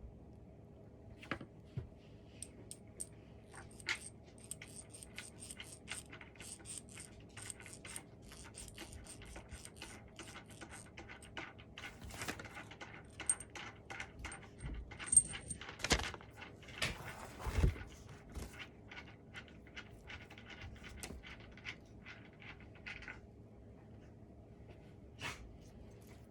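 Small metal screws and hardware clinking and rattling as they are handled, a steady run of light ticks with a faint metallic ring, and a few louder knocks in the second half.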